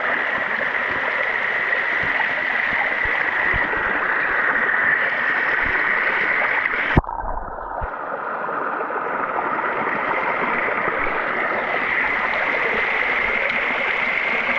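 Creek water rushing steadily over a small waterfall, close to the microphone. About halfway through there is a single sharp knock, after which the sound turns dull for under a second before the rush returns.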